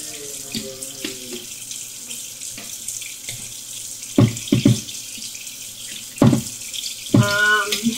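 Steady rush of water running from a kitchen sink tap. A few short louder sounds break in about halfway, with a brief vocal sound near the end.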